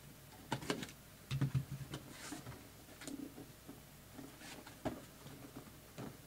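A cardboard shipping box being opened and handled: a scatter of taps, knocks and scrapes of cardboard, with a short rasp about two seconds in as the tape is cut.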